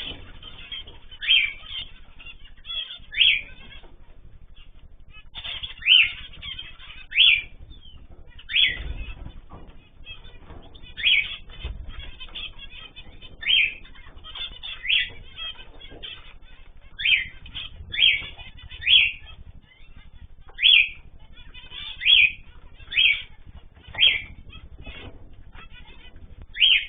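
Pet cage birds calling: loud, short, sweeping calls repeated about every one to two seconds over fainter chatter from other birds.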